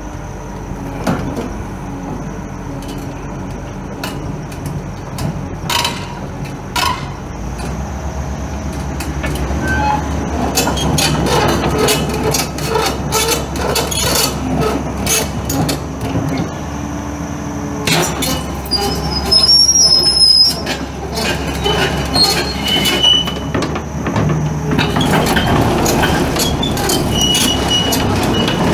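Komatsu PC200LC-7 excavator's six-cylinder turbo diesel running under load, growing louder over the first dozen seconds, with repeated metal clanks and knocks and a few high metallic squeals from the machine's working steel parts.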